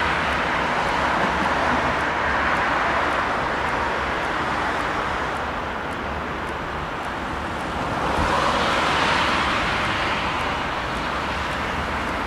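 Cars passing on a city road: steady tyre and engine noise that swells as vehicles go by, loudest at the start and again about eight to nine seconds in.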